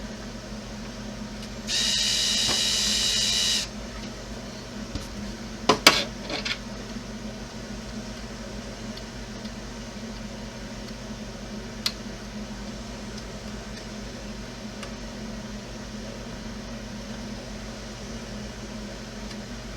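Small power drill running for about two seconds with a steady whine, enlarging a hole in the plow mounting, then a few sharp clicks of parts being handled.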